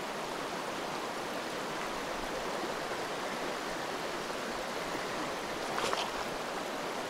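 Small mountain headwater stream running over rocks, a steady rushing of water, with one short, brighter hiss about six seconds in.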